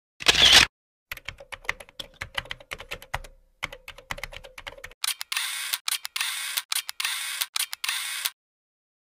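Sound effects of an animated end card: a short noisy burst, then about four seconds of rapid irregular clicks, then a run of harsher noise bursts in quick succession that stops shortly before the end.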